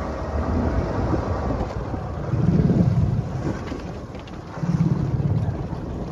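Fishing boat's engine running at sea, a low rumble that swells and eases, with wind buffeting the microphone.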